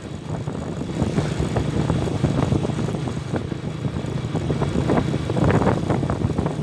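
Honda Tiger's single-cylinder four-stroke engine running steadily while the motorcycle is ridden, with wind buffeting the microphone.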